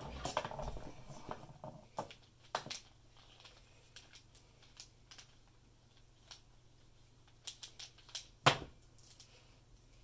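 Wooden snake cube puzzle being twisted and folded by hand, its wooden blocks clattering and clicking against each other: a quick rattling flurry at first, then scattered single clicks, a short run of clicks and one louder knock near the end.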